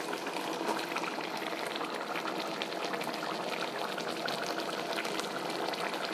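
Pork curry boiling in a wide wok: a steady bubbling hiss with a dense run of small bubble pops.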